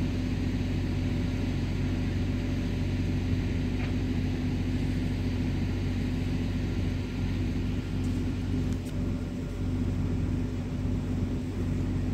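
Fire engine's engine running steadily, a constant low drone.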